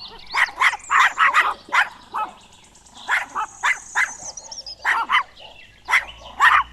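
Puppy yapping: many short, high-pitched yips in quick clusters, with a short lull about two and a half seconds in.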